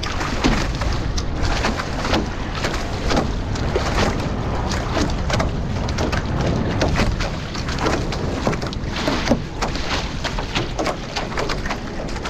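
Nacra 15 sailing catamaran under way: a steady rush of water and wind noise with many short splashes against the hulls.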